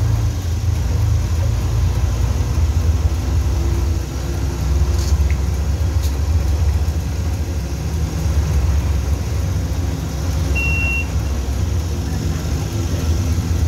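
City bus engine running steadily as the bus drives along, heard from inside the bus as a continuous low drone with road noise. A short, high single beep sounds about ten seconds in.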